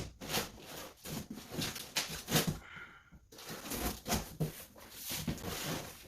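Knife cutting open a cardboard box: a run of irregular scratchy rasps and crackles, with a short pause about three seconds in.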